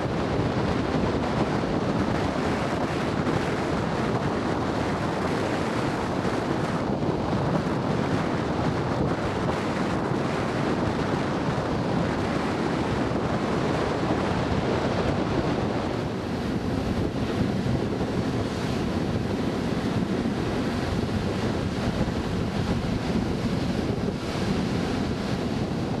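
Ocean surf breaking on a sandy beach, with strong wind buffeting the microphone in a steady rush.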